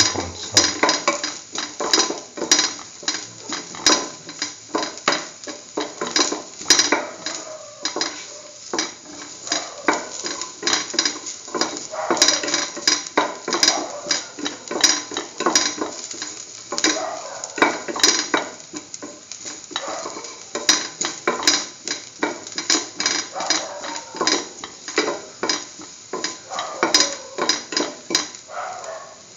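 A metal spoon stirring and scraping sliced onion and garlic around a steel pan of hot oil, with quick irregular clinks and scrapes, several a second, over a light sizzle.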